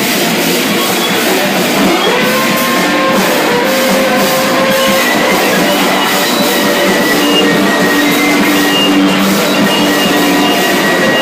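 Live noise band: a drum kit played hard with crashing cymbals under a dense, loud wall of distorted noise. Several held pitches ring through the noise, one of them sliding upward about two seconds in.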